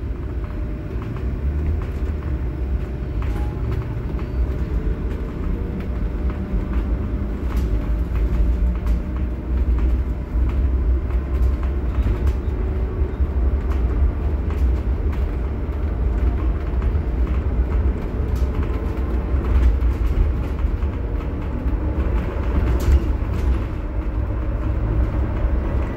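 Cabin ride noise of a Scania/Higer Fencer F1 battery-electric bus under way: a steady low rumble of tyres and road, with scattered small rattles and clicks from the interior.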